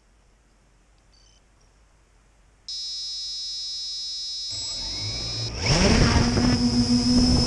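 A steady high electronic tone comes in about two and a half seconds in. About five and a half seconds in, the Traxxas Aton quadcopter's motors and propellers spin up with a rising whine that then holds steady as it lifts off.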